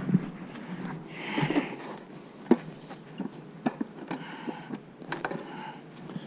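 Scattered light knocks and clicks of beekeeping gear being handled at the hive, with a short hiss about a second in.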